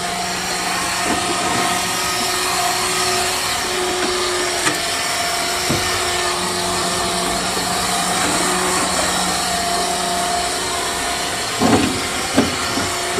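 Handheld electric blower running steadily, a motor drone with a rushing hiss of air, used to blow dust off a combine harvester. A couple of short louder sounds come near the end.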